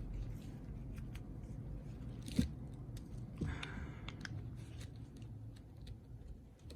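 Small metal clicks and a short scrape from a hand tool working at one of the three small screws that hold an angle grinder's bearing in place. There is a sharp click about two and a half seconds in, then another click and a brief scrape about a second later. The screws are stubborn and do not want to come out.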